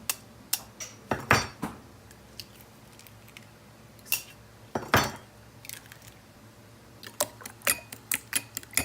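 Kitchenware being handled on a counter: scattered clinks and knocks of dishes and utensils, two louder knocks about a second in and about five seconds in, coming quicker near the end.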